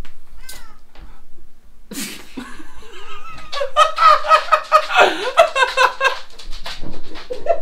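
A man and a woman laughing hard together, starting about two seconds in and going on in quick, rhythmic pulses of laughter.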